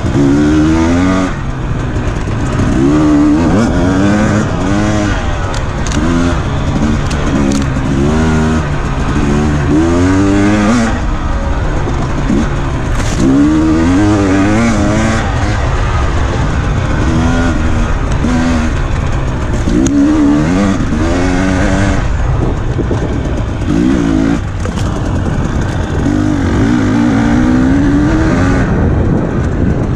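Dirt bike engine under hard riding, its pitch repeatedly rising and falling as the throttle is opened and closed and the gears change.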